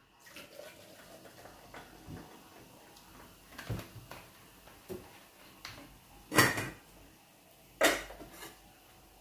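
Handling clatter at a kitchen counter: a series of knocks and clicks as a plastic soda bottle and tableware are put down and moved. The two loudest knocks come about six and a half and eight seconds in.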